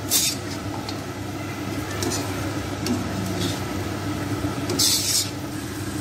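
A metal spoon stirring and scraping chicken pieces around a karhai (wok) over steady sizzling of hot ghee and butter. A few sharp scrapes stand out, the loudest at the start and about five seconds in.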